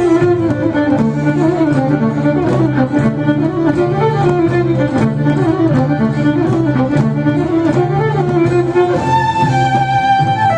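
Fiddle-led orchestral rock instrumental: a violin plays a quick running melody over low sustained string and bass notes and a steady beat. About nine seconds in the violin settles on a long held higher note.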